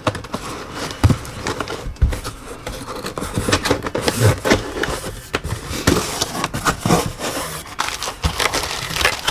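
Cardboard box and packaging being handled and opened: scraping and crinkling, with many irregular knocks and clicks.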